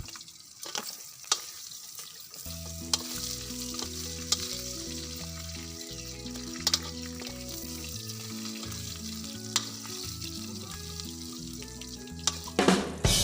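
Food frying in a wok, a steady sizzle with occasional sharp clicks of a utensil against the pan, over background music with a repeating bass line. A louder burst of sound comes near the end.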